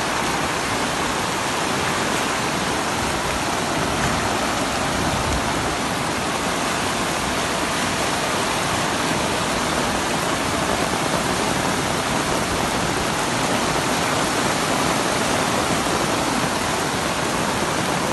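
Heavy rain falling and a torrent of floodwater rushing along a flooded street, a steady, even wash of water noise.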